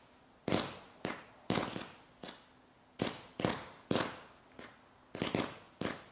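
Low-noise garden fireworks shooting coloured stars into the air: a dozen or so sharp pops, unevenly spaced at about two a second and sometimes in quick clusters, each with a short hissing tail.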